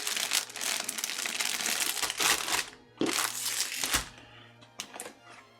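Plastic packaging crinkling as it is handled, in two stretches with a brief pause about three seconds in, then a few light clicks before it goes quiet.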